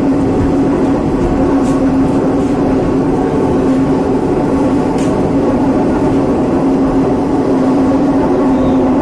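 Inside a Moscow metro 81-760/761 "Oka" car running through a tunnel: loud, steady running noise of the train with a steady low hum.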